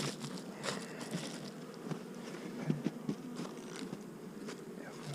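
Honeybees buzzing in a steady hum from an opened, heavily populated hive, with scattered light clicks and knocks.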